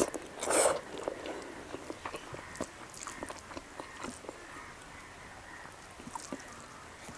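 Close-miked eating of rice and omelette by hand: two short, loud wet mouth noises as a handful goes into the mouth in the first second, then chewing with many small clicks and smacks.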